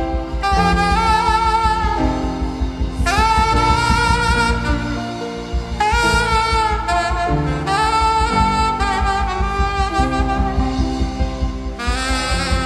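Instrumental band music: a lead melody instrument plays held notes that scoop up into pitch, over a bass line and a steady beat.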